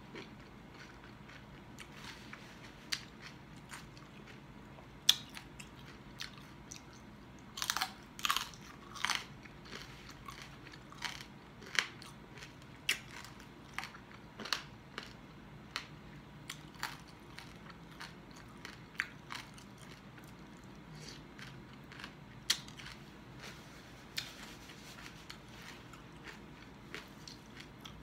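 A person chewing and crunching food close to the microphone: irregular sharp crunches and mouth clicks, with a burst of louder crunching about eight seconds in.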